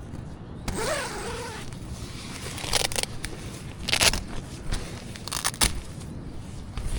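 Scraping and rustling handling noises, with a few sharp scrapes about three, four and five and a half seconds in.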